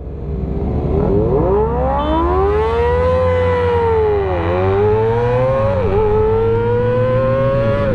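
Sport motorcycle engine at full throttle pulling away, its note climbing through the revs and dropping sharply at upshifts about halfway through and near six seconds in. It is running a loud exhaust that the rider blames for a lack of power and top speed.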